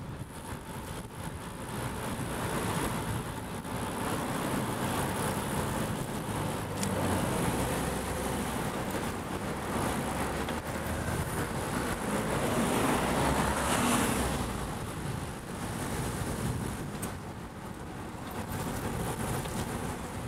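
Road traffic passing close by: a steady mix of car engines and tyre noise, swelling as a vehicle goes by about two-thirds of the way through.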